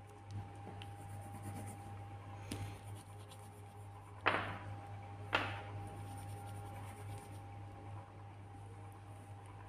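Coloured pencil scratching on paper in short colouring strokes, with two louder strokes about four and five seconds in, over a steady low hum.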